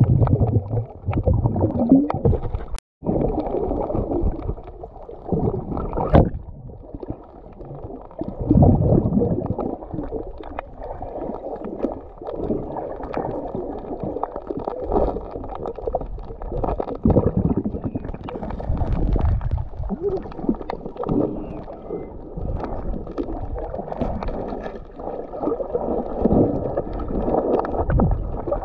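Muffled underwater water noise from a camera held below the surface: irregular swishing and gurgling as the diver moves and grapples with an octopus. It cuts out briefly about three seconds in.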